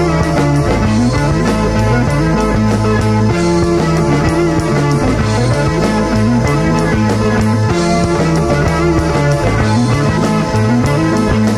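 Rock band playing: bass guitar, electric guitar, keyboards and drums. The bass line steps up and down in a repeating pattern under sustained keyboard and guitar notes.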